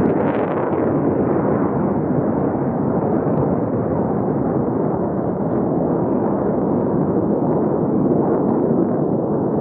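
Jet noise from a formation of Blue Angels F/A-18 Hornets in flight: a loud, steady, rumbling rush that swells briefly about a second in.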